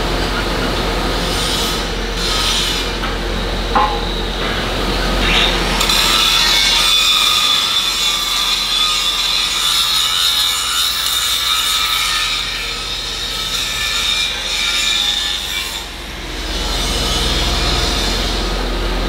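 Angle grinder grinding the edge of a cast-iron grating cover: a steady, high-pitched grinding whine from about six seconds in until about sixteen seconds. Before it there is general foundry noise, with a single metallic clank about four seconds in.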